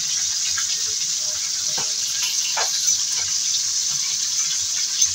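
Tamban fish frying in hot oil: a steady sizzle with scattered small crackles and pops.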